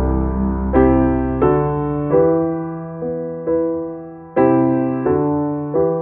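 Background music: soft piano or electric piano playing slow chords, each struck and left to die away.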